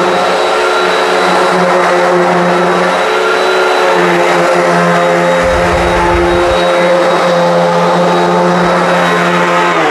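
Hoover WindTunnel High Performance upright vacuum running steadily on an outdoor rug, a loud motor hum with a high whine, with a brief low rumble a little past halfway. At the very end the motor is switched off and begins to wind down, its whine falling.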